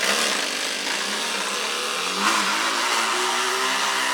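Plastic bottle fixed to a child's bicycle fork, slapping against the turning spokes: a rapid buzzing rattle, rising and falling in pitch with the wheel's speed, made to imitate a motorcycle engine.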